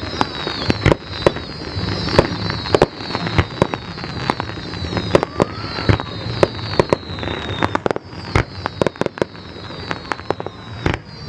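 Fireworks display: a rapid, irregular series of bangs and pops from aerial shells going off.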